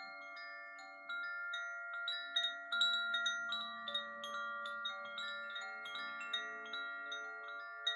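Gentle chime music: irregularly struck notes at several pitches ring on and overlap one another.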